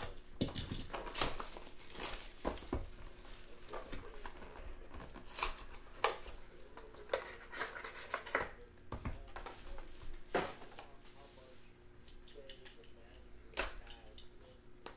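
Trading-card box packaging being torn open and crinkled: a run of irregular sharp crackles and rips, thinning out over the last few seconds.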